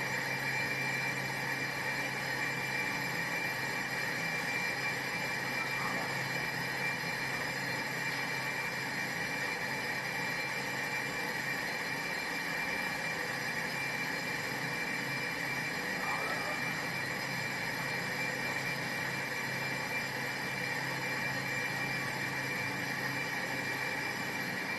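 Brake drum and disc lathe running steadily: a constant high-pitched whine over a low hum.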